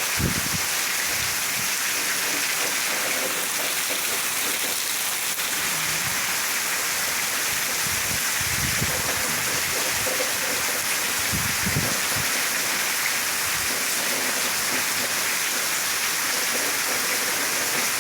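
Heavy rain pouring steadily, with a few short low rumbles of strong wind gusting against the microphone.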